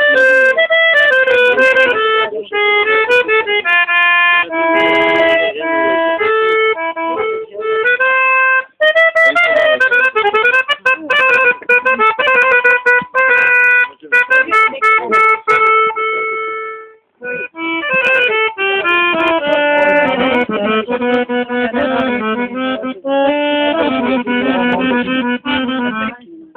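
Accordion played solo: a quick melody over held chords, with a brief break about two-thirds of the way through before the playing resumes.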